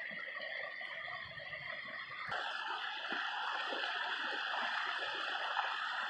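Steady rush of a mountain stream running with snowmelt. About two seconds in it changes abruptly to a louder, brighter rush.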